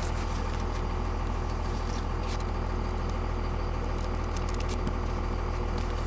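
Cummins turbo-diesel straight-six of a 2001 Dodge Ram idling steadily, heard from inside the cab, with a light rustle of paper on top.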